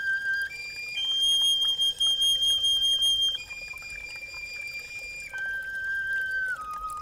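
Reconstructed swan-radius bone flute, a copy of the 35,000-year-old Geissenklösterle flute, playing a slow melody of long held notes. A high note held for about two seconds is the loudest, and then the tune steps down through lower notes. A spring trickles underneath.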